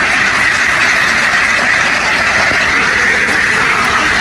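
A large flock of domestic ducks quacking all at once, a dense, steady din of many overlapping calls.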